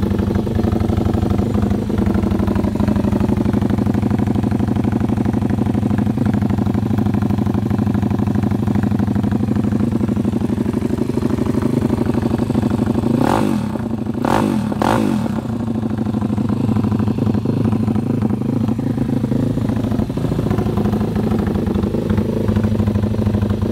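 Pitbike's small single-cylinder four-stroke engine idling steadily, heard close to its exhaust muffler, which has been repacked with rock wool. It gets a few short throttle blips, with the pitch rising and falling, about 13 seconds in. The exhaust note is judged very decent so far.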